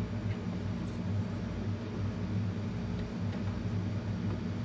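Steady low machine hum, with a few faint light clicks over it.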